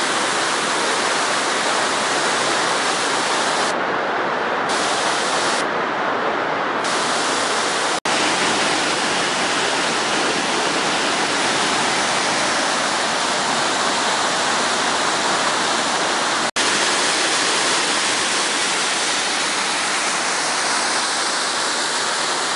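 Mountain waterfall rushing steadily, a loud even roar of falling water that breaks off for an instant twice.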